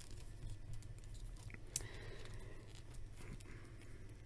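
Faint clicks and rubbing of a plastic WWE Ultimate Warrior action figure being handled as its head is pulled off and a cape is fitted onto its back, with one sharper click about halfway through.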